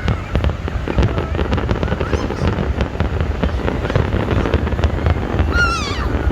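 Fireworks display: dense crackling and popping over a steady low rumble, with a brief wavering high-pitched tone about five and a half seconds in.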